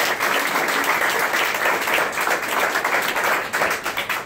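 Audience applauding steadily, thinning out to scattered claps near the end.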